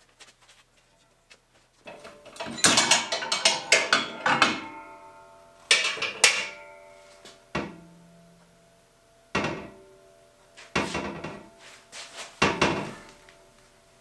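Thin steel circular sawmill blade and its steel swing frame clanking as they are handled. The groups of knocks come about two seconds in, near six seconds, and several more later, and each leaves a bell-like metallic ringing that fades.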